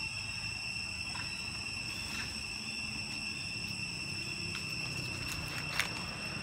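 Steady high-pitched insect drone: one unbroken shrill tone with overtones. A few faint clicks sound through it, and one sharp click comes just before the end.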